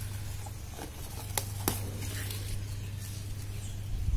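Mint leaves rustling and stems snapping as sprigs are picked by hand, with two sharp clicks about a second and a half in, over a steady low hum.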